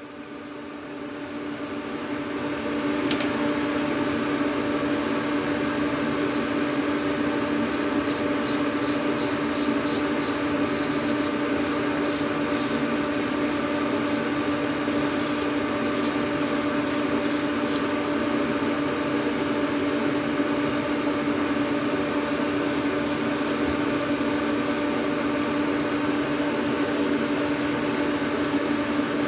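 A steady electric motor hum with a strong low tone swells up over the first few seconds and then holds. Over it come two spells of quick scraping strokes as a razor is drawn through lathered stubble.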